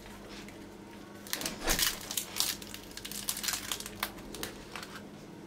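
Crisp oven-baked yufka lahmacun crackling and crunching as hands roll it up around the greens, in a run of sharp crackles that starts about a second in, is loudest around two seconds in and thins out toward the end.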